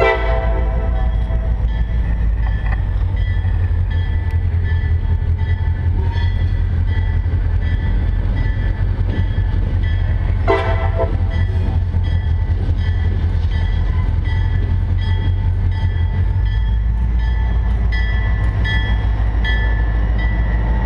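EMD GP40-2 diesel locomotive approaching and passing with a freight train, its engine rumbling throughout. The tail of a horn blast sounds at the start and a short horn blast about ten seconds in. From about six seconds in, evenly repeated ringing strokes continue: the locomotive bell ringing.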